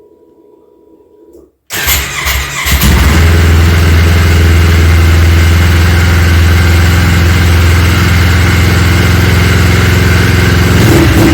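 Yamaha Phazer snowmobile's twin-cylinder engine starting up about two seconds in, catching within a second, then running loud and steady at one speed. The sled's TORS throttle-safety system is acting up.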